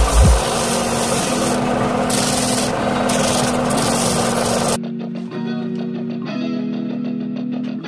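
Sanding, a steady rasping noise that swells in a few stronger strokes, over background guitar music; the sanding stops abruptly about five seconds in, leaving only the music.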